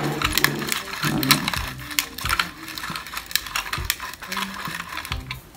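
Hand pepper grinder being twisted over a bowl of rice, its mill clicking and crackling rapidly and unevenly as it cracks black peppercorns.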